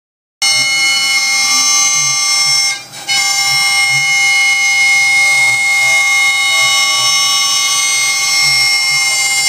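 Laguna IQ CNC router's spindle whining steadily as a carbide down-spiral bit cuts circles 1/2 inch deep into 3/4-inch plywood. Lower tones slide up and down underneath as the head moves around each circle. The sound resumes about half a second in after a short gap and dips briefly about three seconds in.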